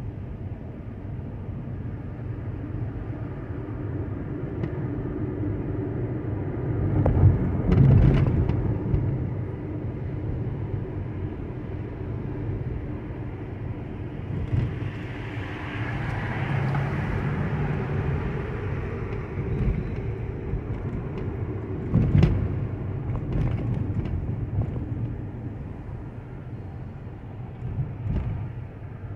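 A car driving on city streets, heard from inside: a steady low engine and tyre rumble with a hiss that swells for a few seconds mid-way, and a few sharp knocks about seven seconds in and again around twenty-two seconds.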